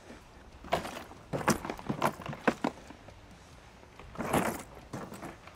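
Milwaukee Packout two-wheel cart loaded with stacked Packout boxes clattering as it jolts down off the concrete path onto asphalt: a run of sharp knocks and rattles for about two seconds, then a rougher rattle about four seconds in.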